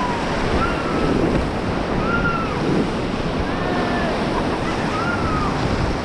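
Rushing white water of a river rapid churning around an inflatable raft, a steady dense roar of water, with wind buffeting the camera microphone. Faint short rising-and-falling tones, like distant calls, sound about once a second over the noise.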